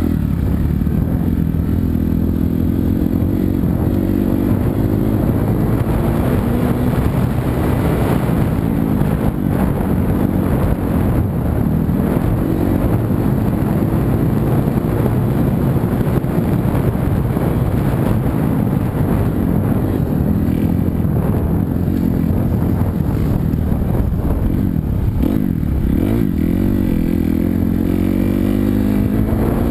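250cc four-stroke single-cylinder motocross bike ridden hard on a dirt trail, the engine heard close up as it revs up and down through the gears. Near the end the revs drop and then climb back.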